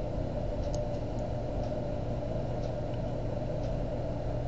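Steady background hum and hiss with a few faint, soft ticks.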